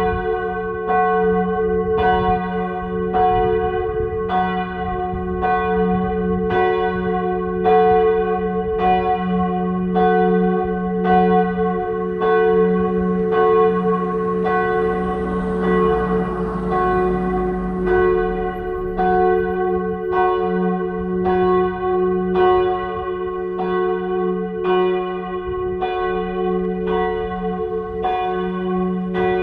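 Several church bells ringing together. A higher bell's strikes come about once a second over the steady hum of larger bells.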